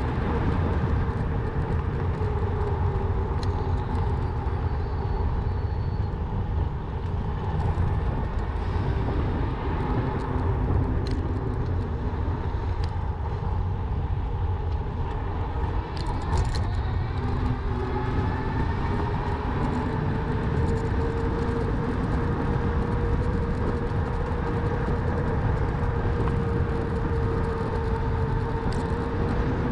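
Riding an electric bike: a steady low rumble of wind and rolling noise, with a faint motor whine that drifts slowly up and down in pitch as the speed changes. A few small clicks and rattles come through.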